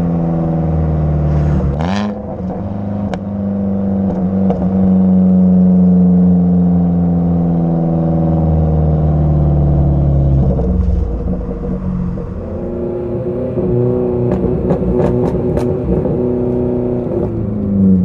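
Ford Focus engine through a muffler-deleted, resonator-deleted exhaust while driving. The note sinks slowly for about ten seconds, with a quick dip and rise of the revs about two seconds in. Later the note changes, with scattered sharp exhaust crackles, and the revs rise and fall near the end.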